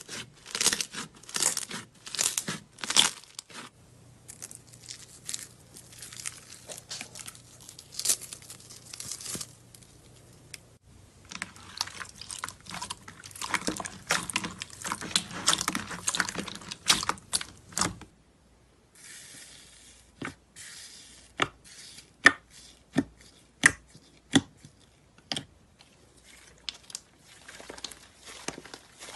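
Hands squeezing, poking and stretching slime: dense crackling and popping clicks, with bursts of sticky crunching as the slime is pulled and pressed. The sound breaks off briefly about 18 seconds in, then goes on as sparser sharp pops.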